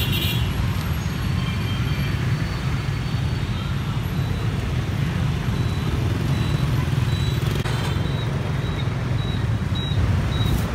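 Dense city street traffic, mostly many motorbike engines running and idling together in a slow-moving jam: a steady, unbroken drone.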